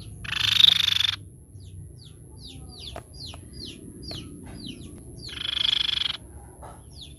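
Crescent-chested babbler (tepus pipi perak) calling: a harsh, rattling churr lasting about a second, then a quick series of short, high, downward-slurred notes at two or three a second, and a second rattling churr about five seconds in.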